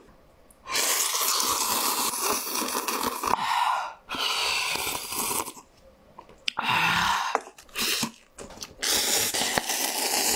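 Close-miked eating sounds: broth sipped and noodles slurped from cup-noodle bowls, in four long, loud stretches with short pauses between.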